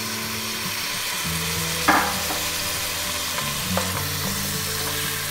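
Diced tomatoes and mushrooms sizzling in a hot stainless steel pot while a wooden spoon stirs them, a steady frying hiss. A sharp knock about two seconds in and a fainter one near four seconds.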